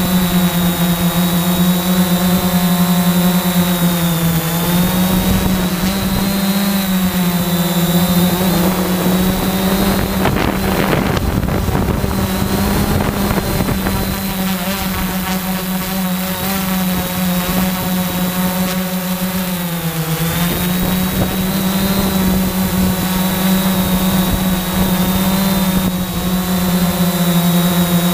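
Camera drone's motors and propellers heard from on board: a steady buzzing hum with a high whine. The pitch dips briefly about four seconds in and again near twenty seconds. Wind rushes over the microphone around the middle.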